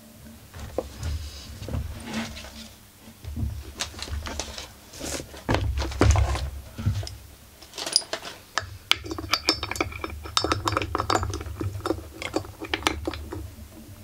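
Metal hand tools and chainsaw parts being handled on a workbench: irregular clicks, rattles and small ringing clinks of metal on metal, with dull handling knocks. The clinking is busiest in the second half.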